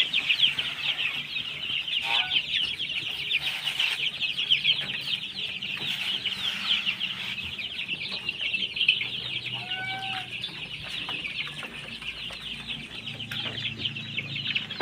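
A brood of kampung chicken chicks peeping continuously in a dense, high-pitched chorus, with a couple of brief lower calls about two seconds in and again near ten seconds.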